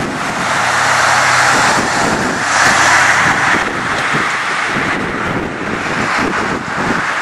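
Jet engine noise from a Boeing 777-300 airliner, a steady roar that swells about a second in and peaks near the middle, with wind buffeting the microphone.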